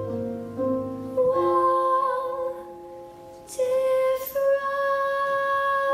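A girl singing the closing phrase of a show tune in long held notes over instrumental accompaniment; the singing softens in the middle and swells again near the end.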